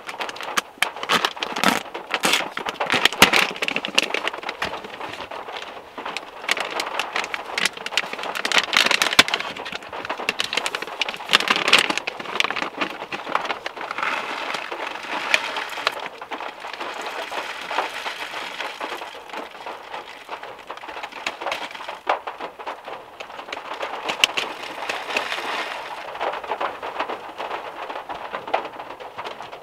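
Heavy rain pattering on the metal roof of a VW Beetle, heard from inside the car: a steady hiss of rain thick with sharp drop clicks, which comes in heavier spells.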